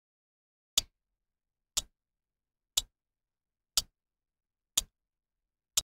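Clock-tick sound effect of a quiz countdown timer: six sharp ticks, one a second.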